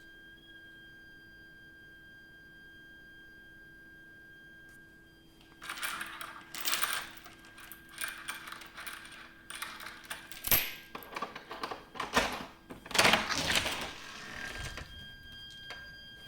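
Continuous high-pitched whistling tone from a heating system's HIU and pipework, a shrill fault noise that persists even when no heating or hot water is being used. For several seconds in the middle, a run of loud, irregular clattering and knocking, with one sharp click, drowns it out before the tone is heard again near the end.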